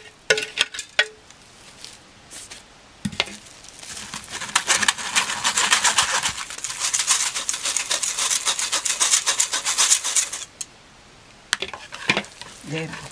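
A wire whisk scraping fast against a fine-mesh metal strainer, working lumpy rice-flour batter through the mesh to remove the lumps. It is a rapid scratchy rubbing that starts about four seconds in and stops about ten seconds in. A few clinks and a knock come before it, and more clinks near the end.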